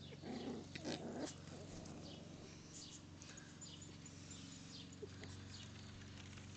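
Kooikerhondje puppies making small dog noises as they play-fight, loudest in a few bursts during the first second and a half, then fainter short high squeaks.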